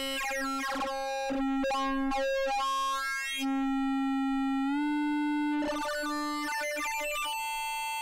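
Beehive Eurorack oscillator (a Mutable Instruments Plaits clone) in its additive harmonic-oscillator mode, main and Hammond-drawbar auxiliary outputs together. It plays a sustained organ-like synth tone whose overtones shift and sweep as the knobs are turned. The pitch steps up slightly about halfway through.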